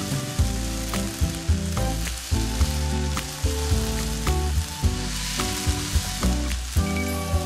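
Dried anchovies, nuts and garlic sizzling in a wok over high heat with soy sauce, rice wine and sugar, stirred with wooden spatulas. Background music plays underneath.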